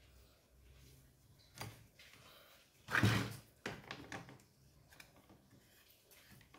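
Hard plastic knocking and clattering as the orange top cover is pressed onto a Stihl MS210 chainsaw. The loudest knock comes about three seconds in, followed by a few lighter taps.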